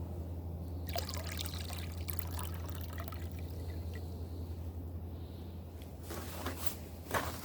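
Water swishing and trickling in a gold pan as concentrate from roasted, crushed ore is worked, with gritty scraping of the heavy material against the pan. A steady low hum runs underneath, and a sharp click comes near the end.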